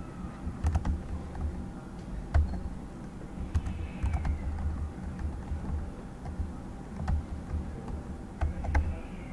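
Computer keyboard keys clacking in irregular short runs, with low thuds under the keystrokes, as code is selected and edited.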